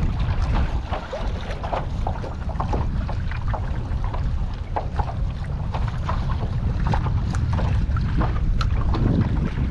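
Wind buffeting the microphone in a steady low rumble, with small waves lapping and splashing against the Hobie Lynx kayak's hull in many short, irregular slaps.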